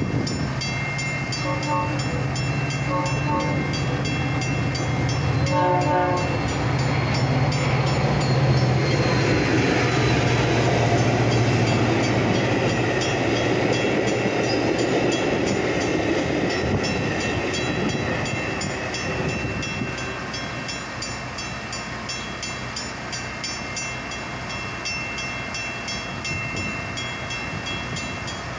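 Metra commuter train passing a grade crossing. The locomotive's horn sounds in a few short blasts in the first six seconds over the diesel's low hum. The bilevel cars then rumble and rush past, loudest from about eight to sixteen seconds and fading after about eighteen seconds. A crossing warning bell keeps up a fast, steady ringing.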